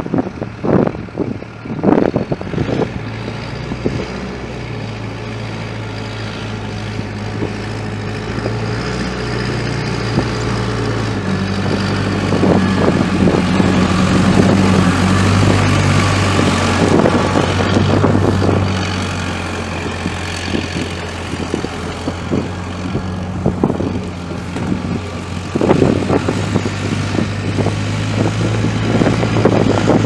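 Diesel engine of a 1992 Case 580 Super K backhoe, a Case 4-390 four-cylinder, running as the machine drives past. It grows louder toward the middle as it comes closest, then fades as it moves away, and its pitch shifts a couple of times. Gusts of wind buffet the microphone in the first couple of seconds and again near the end.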